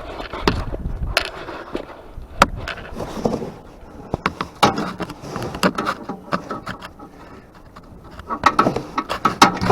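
Scattered sharp metal clicks and knocks of a rear sway bar quick-disconnect link being handled and unhooked by hand on a Yamaha RMAX side-by-side.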